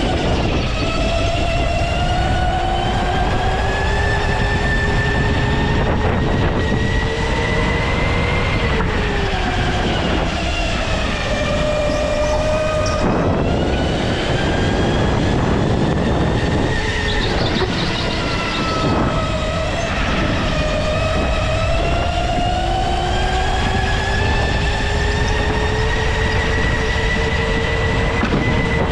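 Go-kart motor heard from on board, a pitched whine that climbs steadily with speed for about eight seconds, falls away as the kart slows, then climbs again through the last ten seconds.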